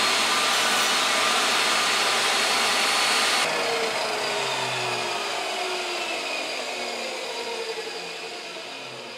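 Chicago Electric benchtop table saw's motor running at full speed with a steady whine, then switched off about three and a half seconds in and spinning down, its whine falling in pitch and fading.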